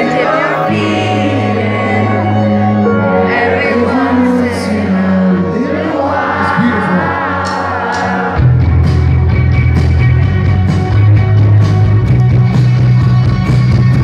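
Live band playing from the audience floor: a singing voice glides over held keyboard chords, then about eight seconds in the full band comes in louder with heavy bass guitar and steady drum hits under electric guitar.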